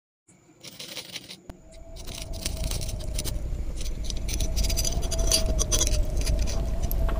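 Metal parts of an old gun's action and lock clicking, clinking and rattling as they are handled and fitted into the wooden stock. Under them runs a steady low hum with a faint, slightly wavering held tone. The sound fades in over the first couple of seconds.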